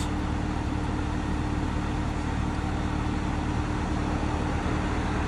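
Sherp amphibious ATV's diesel engine idling steadily, a constant even hum.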